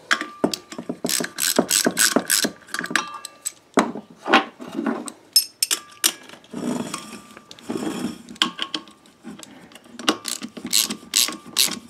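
Socket ratchet clicking in quick runs as a bolt is tightened through a rubber isolator foot, a wrench holding the nut. Light metallic clinks of the tools are mixed in.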